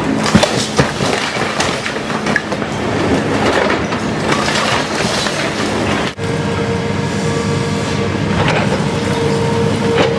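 Heavy demolition machinery running steadily, with repeated clanks and scraping as concrete slab and brick debris is pulled out. About six seconds in the sound breaks off briefly, then the engine continues with a steady higher whine over it.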